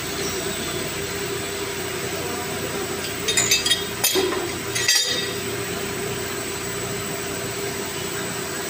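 Several sharp metallic clinks with a brief ringing, from a wrench and steel pipe fittings being handled, bunched from about three to five seconds in. A steady mechanical hum runs underneath.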